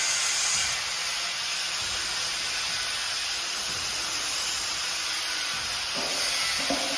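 Steady, loud rushing hiss with an irregular low rumble underneath.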